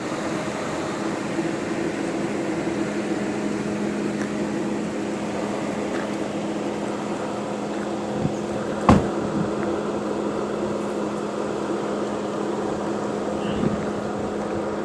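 Steady low hum over an even rushing noise, with a single sharp click about nine seconds in.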